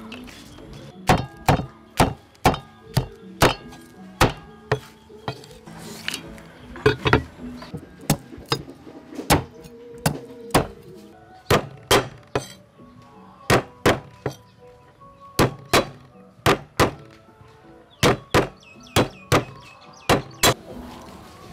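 A steel cleaver chopping on a thick wooden chopping board: a long string of sharp, irregular chops, about one or two a second with some quick runs, as root pieces are sliced and crushed. Soft background music plays underneath.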